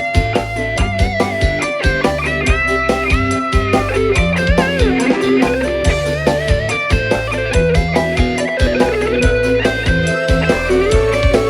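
A live band plays an instrumental break in a pop dangdut song. A guitar lead melody with bending notes runs over bass and a steady drum beat.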